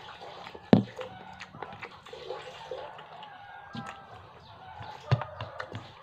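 Close-up eating sounds of boiled pork ribs and rice eaten by hand: wet chewing and mouth noises, with two sharp clicks, the loudest under a second in and another about five seconds in.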